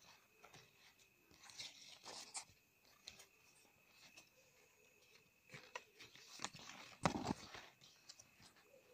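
Paper card being handled: light rustling and crinkling with small clicks, in two bouts, and a louder knock about seven seconds in.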